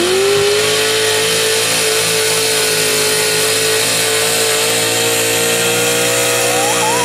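A pulling pickup truck's engine under full load while dragging the weight-transfer sled. The revs climb sharply at the very start and then hold high and steady.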